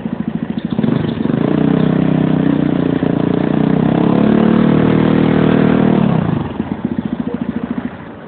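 Yamaha YS Fazer 250's single-cylinder four-stroke engine through a Coyote RS5 aftermarket exhaust. It idles with a pulsing beat, is revved up about a second in and held at high revs for about five seconds, then drops back to idle. Heard through a mobile phone's microphone.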